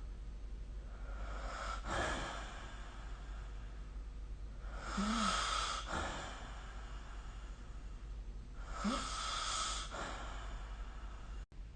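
A sleeping person snoring: three slow, noisy breaths about three and a half seconds apart, two of them starting with a short, low snore.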